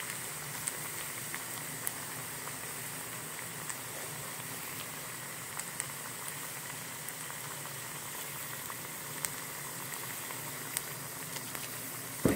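Cassava pieces deep-frying in hot oil: a steady bubbling sizzle with scattered small clicks and pops, and one sharper knock near the end.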